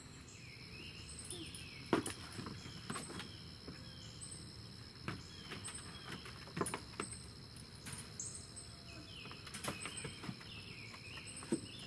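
A dog's paws and claws tapping and knocking on a Solvit pet ramp as the puppy climbs it into a vehicle crate, a dozen or so scattered sharp taps. Birds chirp repeatedly and a steady high insect drone runs underneath.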